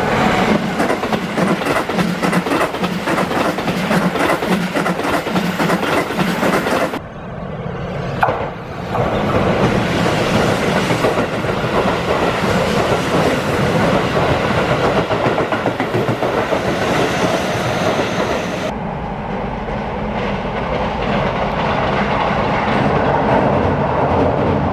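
Keihan 3000 series electric train running past, wheels clattering over the rail joints. The sound changes abruptly twice, about seven and nineteen seconds in, between differently recorded passes.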